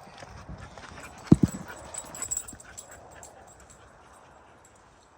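A dog barks twice in quick succession about a second in, over faint footsteps crunching on a dirt trail.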